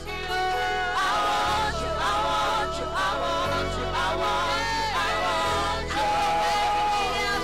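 Live gospel praise music: a woman singing long, bending held notes into a microphone, with backing singers and steady low accompaniment from the band.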